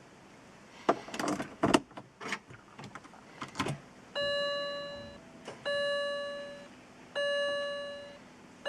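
A few clicks and knocks, then an electronic chime sounds three times about a second and a half apart, each tone ringing for about a second and fading.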